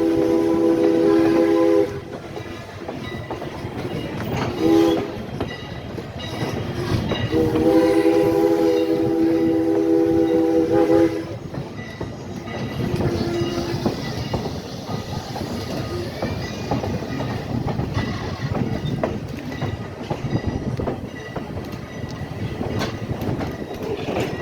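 Steam locomotive No. 89's whistle blowing a several-note chord: a long blast ending about two seconds in, a short toot near five seconds, another long blast from about seven to eleven seconds, and a fainter short toot after it. Between and after the blasts, the passenger coaches roll with a steady clickety-clack over the rail joints.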